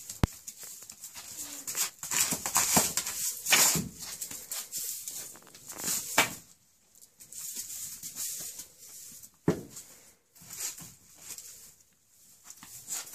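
A Soay ram butting and shoving a broom across a concrete floor strewn with straw: irregular scraping and rustling of the broom and hooves, broken by a few sharp knocks, one just after the start, one about halfway through and one about two-thirds of the way through.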